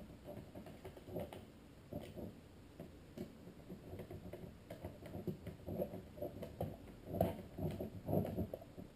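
Small screws being screwed by hand into a plastic gauge-cluster housing: irregular light clicks and ticks of the screws, tool and plastic parts being handled.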